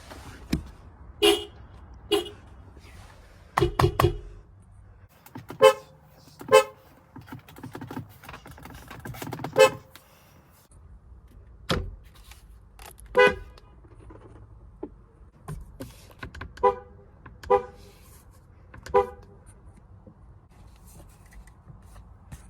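A string of short car horn honks, most of them single brief toots one to two seconds apart. A longer honk of about a second and a half comes near the middle. The pitch of the horn changes from honk to honk, as from different cars.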